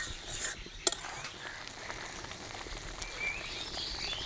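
Thick masala gravy simmering in a kadai over a flame, bubbling and spluttering as it is fried down, with a single ladle knock against the pan about a second in.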